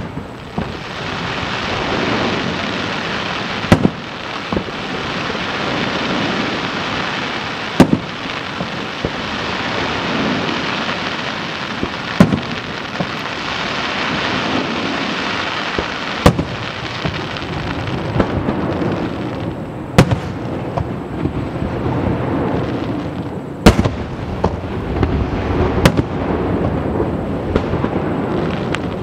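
Aerial firework shells bursting in a display, with sharp booms about every four seconds over a steady crackling hiss.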